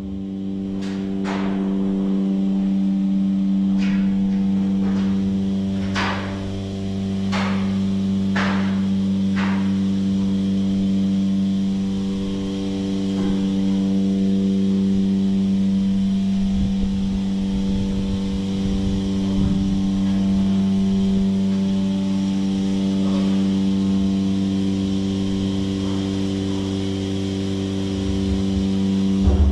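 A steady machine hum with sharp knocks over it, several in the first ten seconds and fewer after.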